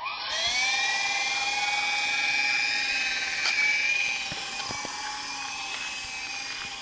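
Small electric RC helicopter's motor and rotor spinning up, the whine rising in pitch over the first half second and then holding steady and high. It turns a little quieter about four seconds in.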